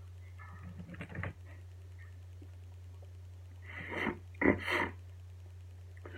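A man's sniffs and sharp breaths: faint stirrings about a second in, then a few short breathy bursts about four seconds in.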